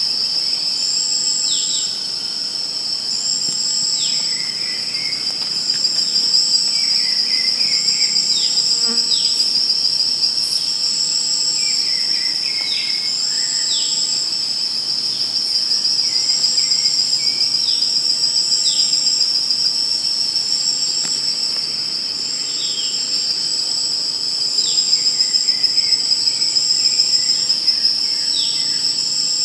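Chorus of insects trilling: a steady high-pitched drone with a second, higher insect note pulsing about once a second. Short falling chirps come in every few seconds over it.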